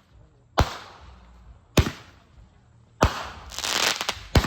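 Fireworks going off: four sharp bangs, a little over a second apart. Between the third and fourth bang there is about a second of hissing crackle with a few quick cracks.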